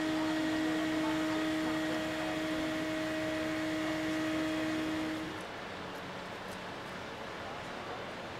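Fire-service machinery running with a steady hum-whine over a background rush; the hum stops suddenly about five seconds in, leaving the steady rush.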